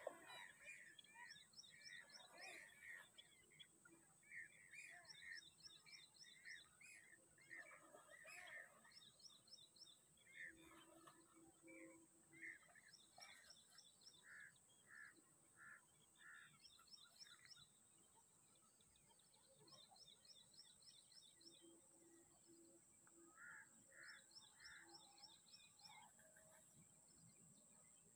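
Faint birdsong: one bird repeating short, quick trilled phrases every couple of seconds while another gives runs of evenly spaced chirps, over a steady high-pitched tone.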